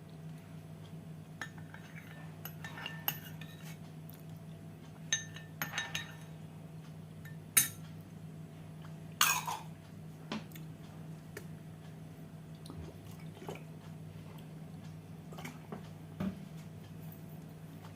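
Dishes and cutlery clinking and scraping during a meal: a scatter of light clinks, the loudest a sharp clink about eight seconds in, followed shortly by a brief scraping clatter, over a steady low hum.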